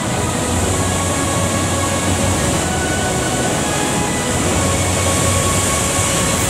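Steady roar of the Falls of Falloch waterfall, water pouring over a rock ledge into the pool below.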